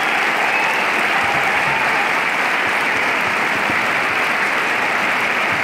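Concert hall audience applauding, a dense, steady clapping that holds throughout.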